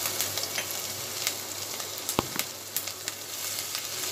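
Mustard seeds sizzling in hot oil in a kadhai: a steady hiss with many scattered sharp pops as the seeds splutter. One stronger single knock about two seconds in.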